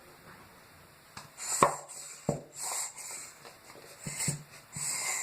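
Plastic shampoo bottle being handled and squeezed into a container: a few sharp knocks and short hissing squirts.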